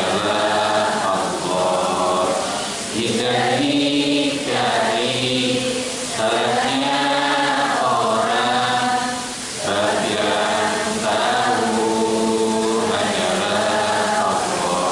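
A man's voice chanting an Islamic devotional song from a song booklet into a microphone, in long held and gently gliding notes. The phrases are separated by short breaths.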